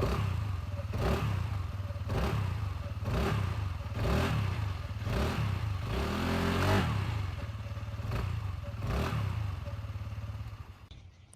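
Kymco KRV Roma GT scooter's 175cc four-valve, water-cooled single-cylinder four-stroke engine running, with a steady low hum and a swell about once a second, fading out near the end.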